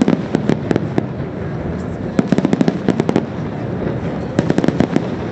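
Fireworks crackling: three clusters of rapid sharp pops, about a second apart, over a steady background rumble.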